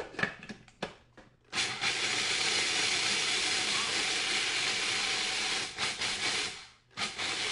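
Food processor running, chopping honey-roasted peanuts together with pretzel crumbs. After a few clicks and knocks at the start, it runs steadily for about five seconds, stops briefly, and starts again near the end.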